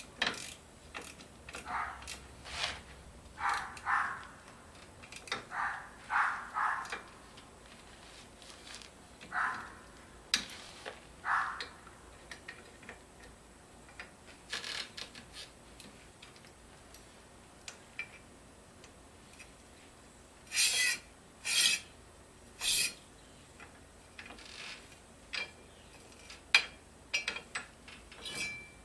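Intermittent metallic clinks, clanks and scraping of tools and metal parts being handled. The sounds come as scattered short knocks and brief rubbing bursts with quiet gaps between, including three sharp clanks in quick succession a little past two-thirds of the way through.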